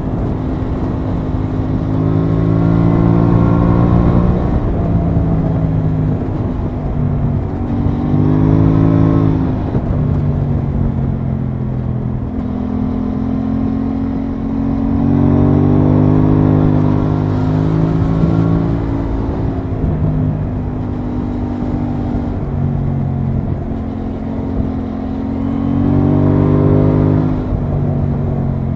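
Aprilia Tuono 660's parallel-twin engine running under way, its pitch rising as it pulls and falling back between pulls about four times.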